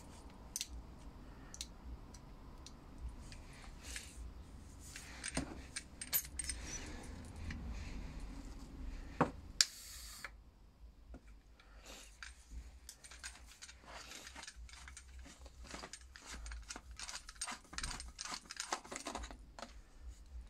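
Light metallic clicks and clinks from the parts of a Makita grease gun attachment being handled, with a denser run of small clicks in the second half as the aluminium barrel is unscrewed from the head. A short rustle comes about halfway through.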